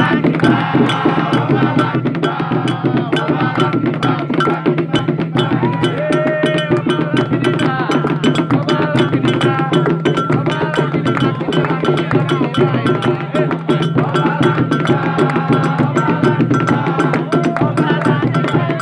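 Afro-Brazilian ritual music: hand drums and a struck wood or bell-like percussion beating a fast, driving rhythm, with voices singing over it.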